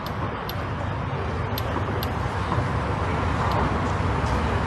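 Outdoor ambience at a tennis court: a steady low rumble, with a few faint sharp ticks scattered through it.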